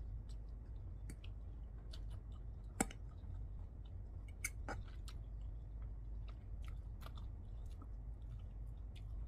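A person eating noodles and chewing with their mouth close to the microphone: scattered short, wet mouth clicks and smacks over a steady low hum, with one sharp click about three seconds in the loudest.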